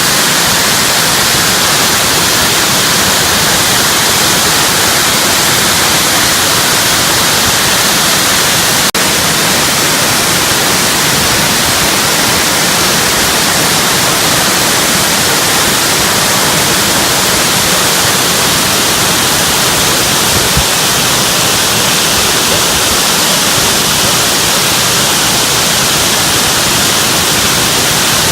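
Loud, steady rush of a waterfall falling close by.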